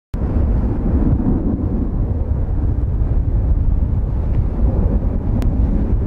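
Strong wind buffeting the microphone: a heavy, steady low rumble. A single faint click comes near the end.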